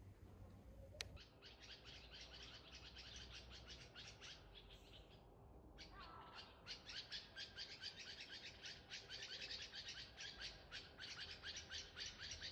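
Faint bird chirping: short, high chirps repeated about three times a second, breaking off briefly around the middle. A single click about a second in.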